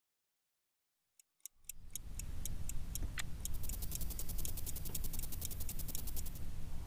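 Clock-like ticking over a low steady hum. It starts about a second and a half in, and about two seconds later the ticks come roughly twice as fast.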